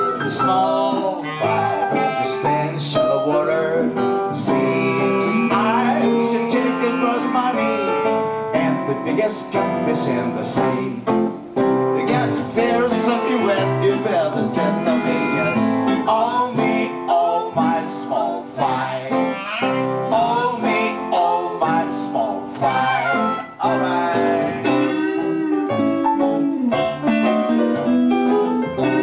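Live acoustic swing music: acoustic guitars strumming with clarinet and piano, and singing.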